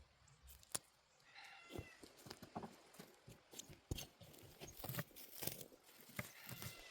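Weeds being pulled by hand from a garden bed: roots tearing and soil crackling in a run of irregular snaps and rustles. A chicken gives a short call about a second and a half in and again near the end.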